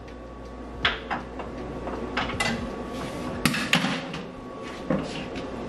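Irregular short knocks and clatters, about seven in all, from a scoop and containers being handled while more ice or ice cream is added to a blender pitcher for a shake. A steady low hum runs underneath.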